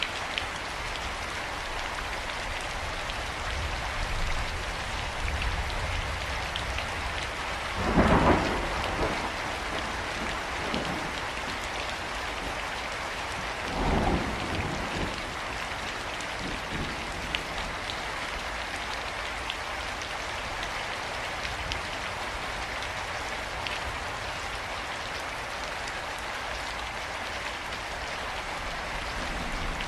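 Steady rain pouring during a thunderstorm, with two short peals of thunder about 8 and 14 seconds in that rise above the rain.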